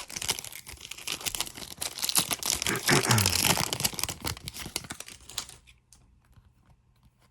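Foil trading-card pack wrappers being torn open and crumpled, a dense crinkling and tearing that stops about five and a half seconds in, followed by a few faint clicks.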